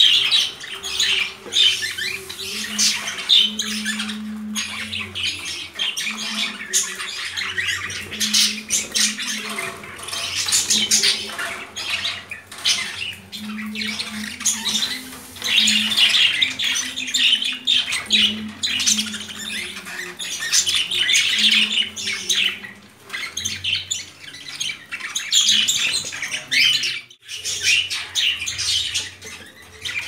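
Pet budgerigars and cockatiels chattering and squawking without let-up, with a brief break about 27 seconds in.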